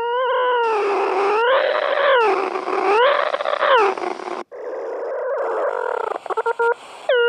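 Electronic tone from the Desmos graphing calculator's audio playback, its pitch swinging up and down about once a second under a layer of hiss. After a short break about four and a half seconds in it returns as a steadier tone, then breaks into a quick run of short beeps near the end.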